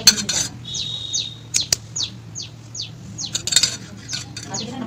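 A spoon scraping and clicking against the inside of a stainless steel tin as dry instant coffee and sugar are stirred, with a few sharp knocks as the loudest moments. A bird chirps over it the whole time, short falling chirps about two or three a second.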